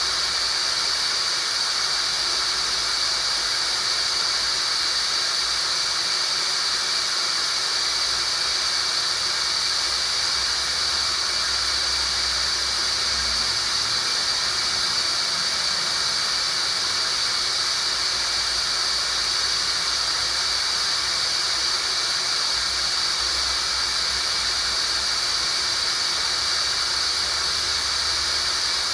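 Tinnitus sound-therapy noise: a steady, high-pitched hiss, strongest on one high pitch, that never changes.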